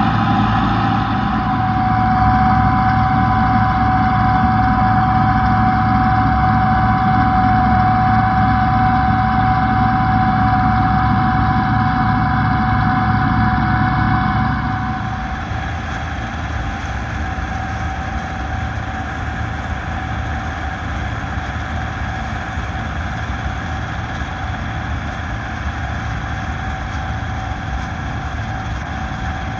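Bizon Z056 combine harvester's six-cylinder diesel engine running steadily while harvesting, with a steady whine over the engine noise. The sound drops a little in level about halfway through and carries on evenly.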